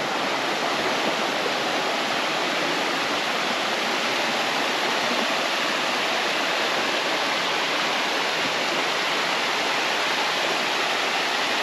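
Small cascading waterfall on a mountain creek, water rushing steadily over rock.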